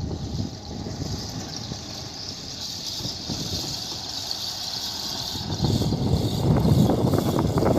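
Heavy diesel machinery running with a low rumble, which grows louder about two-thirds of the way in.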